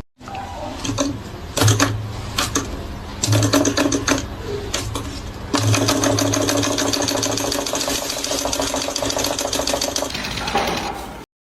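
A small machine running with a fast, even clatter, in several short runs and then one longer run that starts about halfway in.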